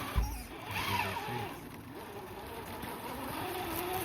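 A single thump of the camera being handled, then the small electric motor of an RC crawler truck whining, its pitch wavering up and down as the throttle changes.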